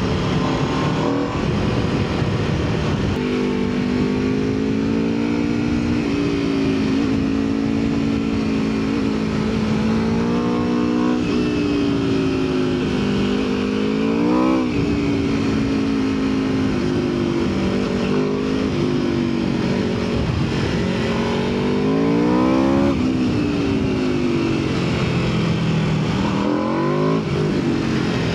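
Aprilia RSV4 superbike's V4 engine under way, its pitch climbing sharply several times as the throttle is opened and dropping back in between, as the bike is ridden through tight corners.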